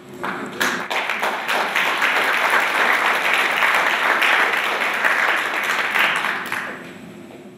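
Audience applauding. It builds up within the first second, holds steady, and dies away over the last second or so.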